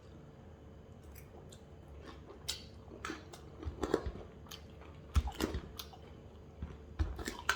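A person chewing a mouthful of chicken egg noodles, with irregular short mouth smacks and clicks that come in a few clusters.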